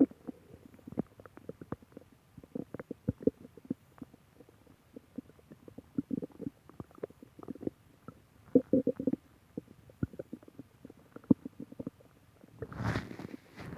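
Human stomach gurgling and growling: scattered short pops and bubbly gurgles, bunched in small clusters a few seconds in, at about six seconds and near nine seconds. About a second before the end a louder, continuous rumble sets in.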